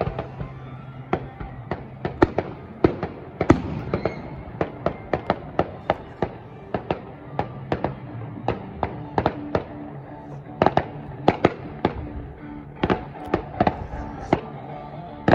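Fireworks going off: a dense, irregular run of sharp bangs and pops, several a second, with the loudest bursts about ten to eleven seconds in. A steady low hum of held tones, like distant music, sits underneath.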